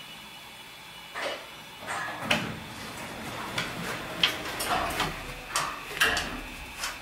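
Elevator doors sliding open and a Dalmatian's claws clicking and tapping on the floor as it walks into the elevator car: a string of sharp clicks, roughly one every half second, starting about a second in.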